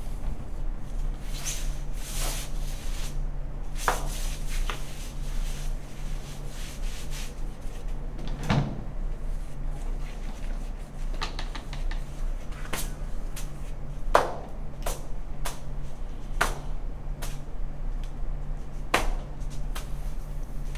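Scattered knocks and clicks, about one every second or two, the heaviest thump about a third of the way through, over a steady low hum.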